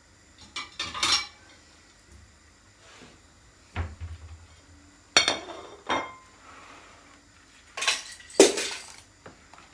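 Kitchen dishes and utensils clattering and clinking in several separate bursts as they are handled on the counter, with one duller knock midway and the loudest clatter near the end.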